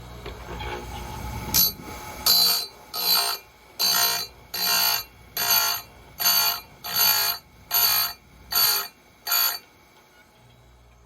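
Bench chainsaw-chain grinder sharpening the cutters one after another: the grinding wheel comes down on a tooth about ten times, a bit under a second apart, each a short high-pitched grind, with the grinder motor running steadily in between.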